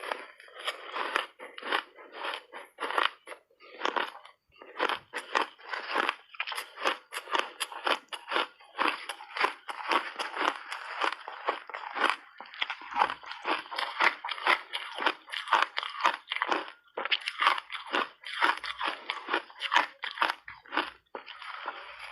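Refrozen shaved ice being bitten and chewed in big mouthfuls: dense, rapid crunching and cracking throughout, with short pauses between bites.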